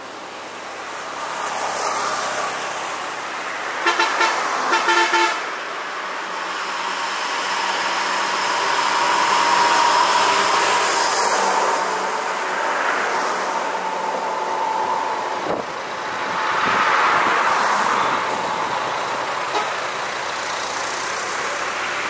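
Road traffic passing by, with the engine and tyre noise of each vehicle swelling and fading in turn. About four seconds in, a vehicle horn sounds several short toots in quick succession, the loudest sound here.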